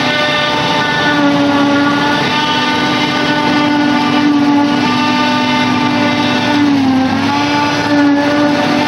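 John Deere self-propelled forage harvester picking up and chopping a grass windrow for silage, its engine and chopping drum running with a loud, steady whine. The pitch sags briefly about seven seconds in, then comes back up.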